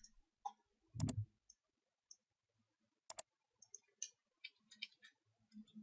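Faint, sparse clicks of a computer keyboard and mouse: a sharp double click about three seconds in, then scattered light key taps, with a short muffled thud about a second in.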